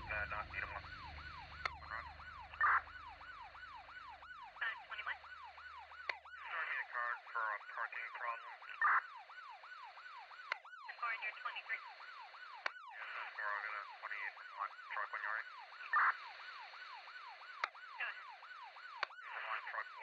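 Emergency-vehicle siren in a fast yelp, its pitch rising and falling about three times a second, with a sharp click every few seconds.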